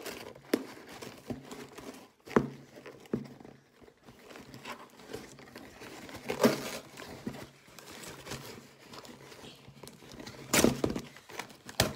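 Scissors cutting through a cardboard box and its packing tape: irregular snips, scrapes and rustling of the cardboard, with louder cuts a little past two seconds in, around six seconds in and near the end.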